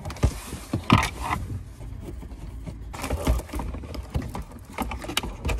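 Hard plastic dashboard parts clicking, knocking and rattling as they are handled and pulled loose from a car's dash, in irregular clicks with the loudest knocks about a second in.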